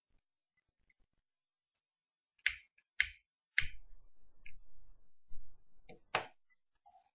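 Starlings moving about inside a nest box: three sharp clicks or taps about half a second apart, then a low rumble of movement, and another loud click near the end.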